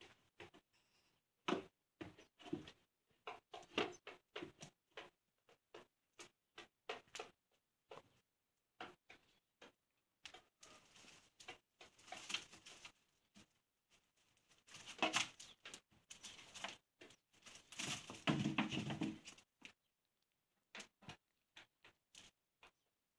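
Goat kids moving about a straw-strewn pen: scattered light taps and knocks from small hooves on the ground, a rubber tub and a plastic crate, with a few longer bursts of scrabbling and rustling in the middle and toward the end.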